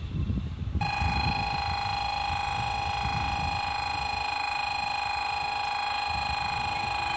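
Electronic train-approach warning alarm on a Shinkansen platform: a steady, gently pulsing buzzer-like tone that switches on about a second in, signalling an incoming train.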